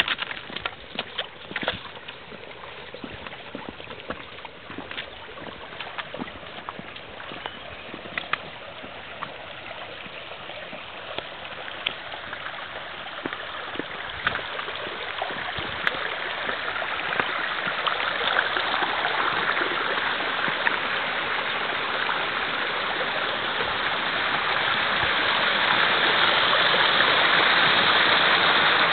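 Shallow stream running over rocks, a rushing, gurgling flow that grows steadily louder and is loudest near the end beside a small cascade. Sharp footsteps on stone slabs click over it in the first couple of seconds.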